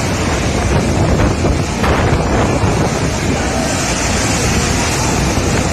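Strong storm wind blowing hard and buffeting the microphone, a loud, steady rushing noise.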